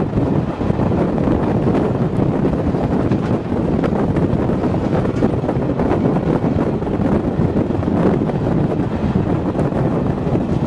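Steady wind buffeting the microphone at the open window of a moving train carriage, mixed with the train's running noise.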